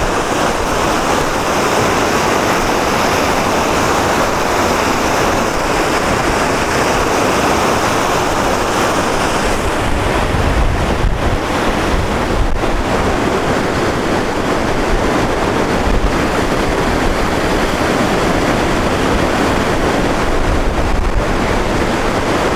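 Whitewater rapids of the St. Francis River rushing over rocks at high water: a steady, loud rush, with wind buffeting the microphone.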